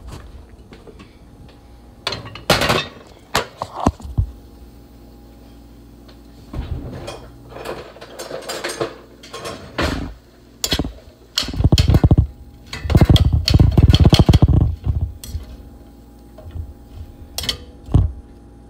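A utensil clattering and scraping in a stainless steel pan as chopped onions are stirred, with scattered knocks early on and the loudest, densest stirring in two bursts about two-thirds of the way through.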